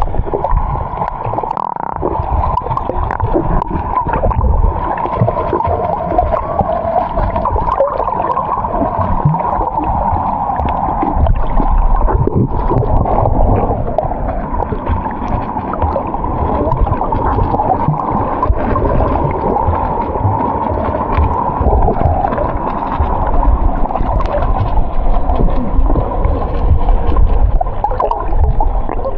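Steady, muffled rushing and gurgling of water with a constant low rumble and an even hum, as around a moving catamaran; a few faint clicks and knocks scattered through it.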